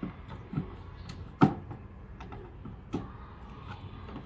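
A screwdriver and a split air conditioner's outdoor-unit plastic service-valve cover being handled and screwed into place: several short, sharp clicks and knocks, the loudest about a second and a half in.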